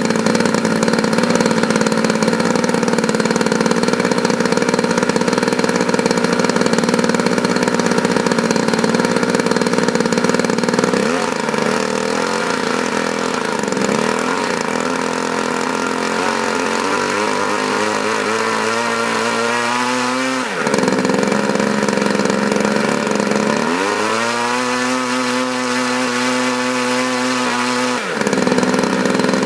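DLA 56 single-cylinder two-stroke model-aircraft gasoline engine running on a test stand. It runs steadily at first. Then its speed rises twice, the pitch climbing, and each time it drops back suddenly to a lower speed.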